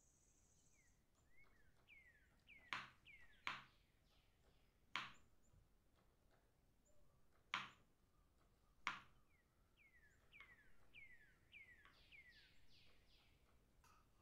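Knife slicing a banana on a wooden cutting board: five sharp knocks of the blade on the board, a second or more apart. Between them come runs of faint short chirps that fall in pitch.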